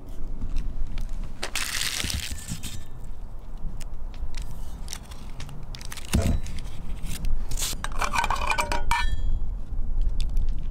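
Stainless-steel granulator parts being handled: a rustling scrape early on, a dull knock about six seconds in, and metal parts clinking together around eight to nine seconds, over a low rumble.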